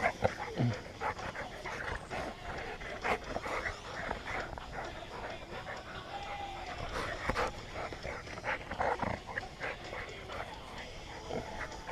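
Dogs at play: panting, with short whimpers, barks and scuffling sounds scattered throughout.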